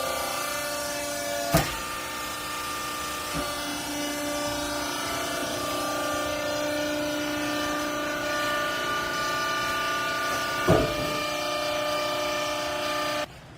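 Hydraulic clothing baler's pump unit running with a steady whine of several held tones. Two sharp knocks come about a second and a half in and again near eleven seconds. The running sound cuts off abruptly just before the end.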